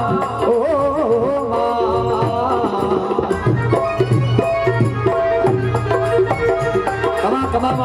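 Rajasthani folk devotional music played live, with a dholak (two-headed barrel drum) beating a steady rhythm under a melody. The melody wavers for about the first three seconds, then settles into held notes.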